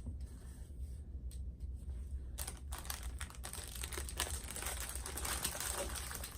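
Small plastic bags of diamond-painting drills being handled, crinkling and clicking. The sound is sparse at first and becomes a steady rustle about two and a half seconds in.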